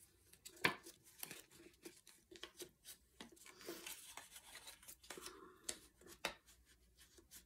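A burnishing tool rubbed and pressed along score lines on a cardstock band, creasing them crisp: faint, short scrapes and taps of tool on paper, the loudest about two-thirds of a second in.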